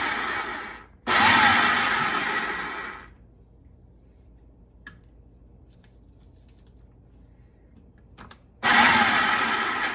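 Food processor pulsing: its blade motor whirs in short pulses that wind down as they stop, cutting cold butter cubes into flour and sugar for pie dough. Two pulses in the first three seconds, a pause with a faint click or two, then another pulse starts near the end.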